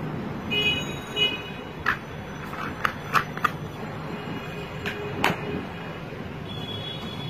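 Sharp plastic clicks and taps as a plastic bottle with a flip-top cap is handled and opened, several in quick succession around the middle, over a steady low hum. A short, two-part horn-like tone sounds about half a second in.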